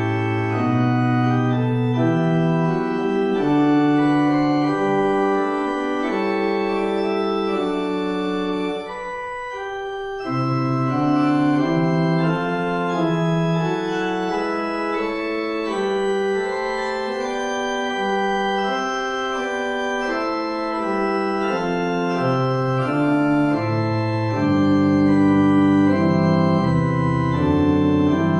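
Organ music playing slow, held chords that change every second or two, with a brief break about nine seconds in before it goes on.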